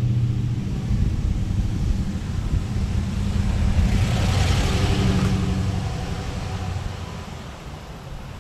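A motor vehicle's engine rumbling past, building to its loudest about four to five seconds in and then fading away.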